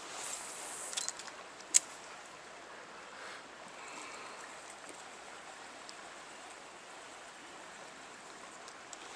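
Steady rush of a flowing stream, with two light clicks about one and just under two seconds in.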